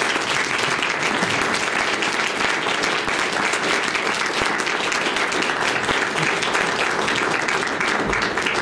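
Audience applauding steadily, a dense clatter of many hands clapping.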